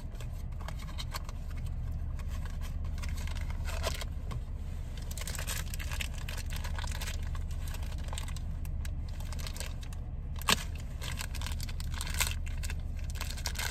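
Small cardboard blind box being torn open and its plastic wrapping crinkled by hand as a toy in a plastic dome is unwrapped, with scattered clicks and one sharper click about ten seconds in. A steady low hum runs underneath.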